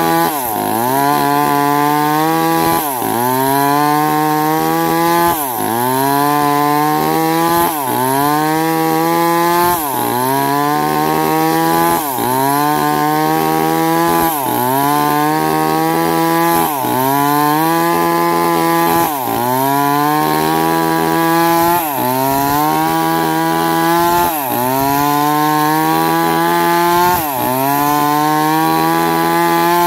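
ZMC5566 two-stroke chainsaw running at high speed. Its pitch drops sharply and climbs back over and over, about once every two and a half seconds.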